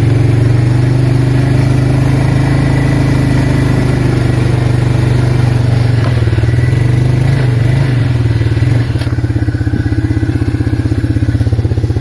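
Arctic Cat 366 ATV's single-cylinder four-stroke engine running steadily and loud. Its pitch wavers and dips about six to eight seconds in, and it drops slightly in level about nine seconds in.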